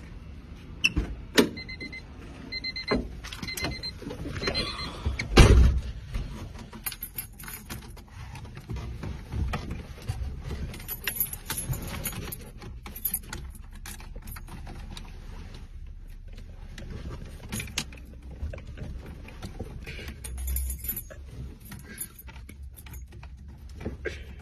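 Handling noise inside a car: keys jangling, rustling and scattered clicks. A few seconds in comes a run of short, evenly spaced high beeps, and a heavy thump follows soon after.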